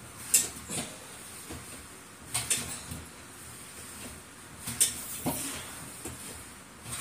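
Home weight-training machine for chest work clicking and clinking in pairs about every two seconds as it is worked through repetitions.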